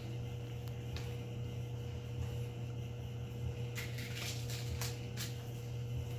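A few faint light clicks of M&M candies being picked from a small plastic dish and set down on a paper graph on a wooden table, over a steady low hum.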